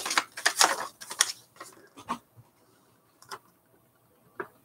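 Paper rustling and crinkling as a folded instruction sheet is pulled from the box and opened out, then two faint ticks near the end.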